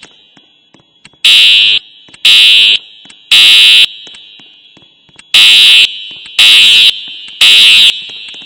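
A building's voice-evacuation fire alarm sounds its evacuation tone in the temporal-three pattern. There are two groups of three loud, high-pitched half-second beeps, about one a second, with a longer pause between the groups.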